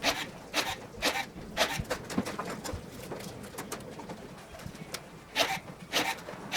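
Pull rivets being set with a rivet puller in aluminium aircraft bulkheads and skin: a string of short, sharp pops about half a second apart, a pause of a few seconds, then more.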